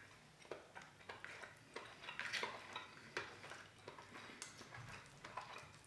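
Faint, irregular clicks and scrapes of a metal fork and spoon working pork and rice on a banana leaf.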